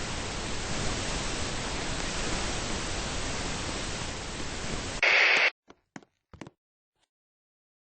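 Steady hiss of an L.O.L. Surprise doll peeing into the air. About five seconds in it goes louder for half a second, then cuts off suddenly, leaving a few faint clicks.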